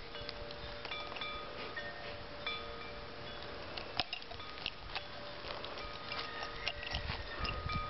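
Chimes ringing softly: several clear tones at different pitches that overlap and fade in and out, with a few faint clicks, one about four seconds in.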